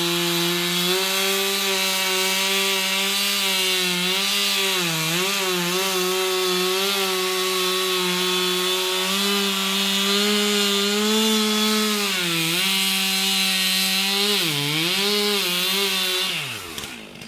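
Chainsaw running at high speed as it cuts into the trunk of a dead tree, its pitch dipping briefly a few times as the chain loads in the wood. Near the end the engine note falls and the saw stops.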